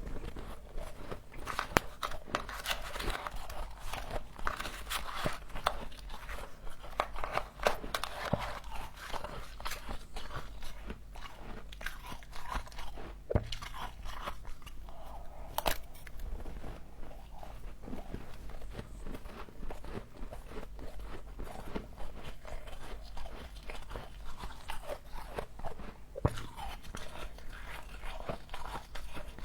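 Frozen humidifier frost being bitten and chewed close to the microphone: a dense, continuous run of crisp crunches and crackles, with a few sharper, louder snaps along the way.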